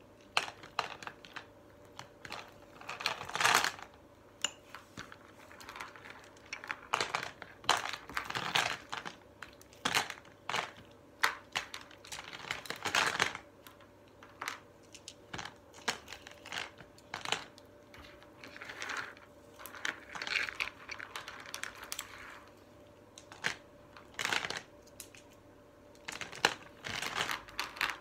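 Plastic beads clicking and rattling on the table and against a clear plastic tub, in irregular single clicks and short clattering spells as they are handled and packed away.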